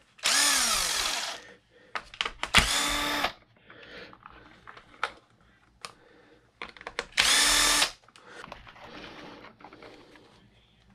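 Cordless drill-driver backing out the lid screws in three short runs. The first lasts about a second and a half and winds down in pitch as it stops. The other two are shorter, one about three seconds in and one past the middle, with faint clicks and rustling in the gaps.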